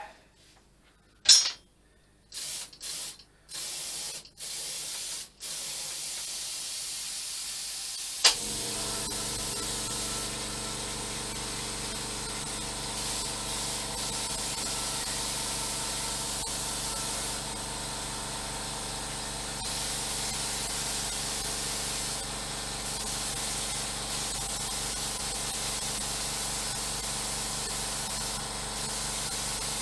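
A sharp click about a second in, then a gravity-feed spray gun hissing as it sprays paint: a few short bursts, then a long continuous hiss. About eight seconds in, after another click, a motor starts and hums steadily under the hiss: the air compressor feeding the gun.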